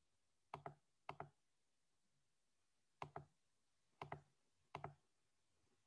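Computer mouse button clicked five times at uneven intervals, each click a quick double tick of press and release, over near silence.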